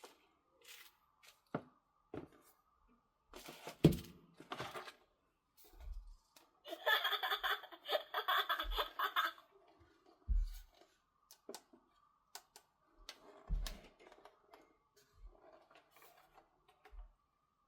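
A plastic bath toy and its packaging being handled: scattered clicks and low knocks, with about two and a half seconds of dense rustling or tearing near the middle.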